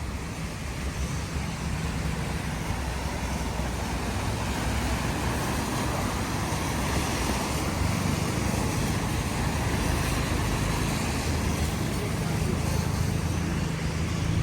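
Steady city street traffic: cars running past on rain-wet roads, a continuous wash of tyre and engine noise with a low hum underneath.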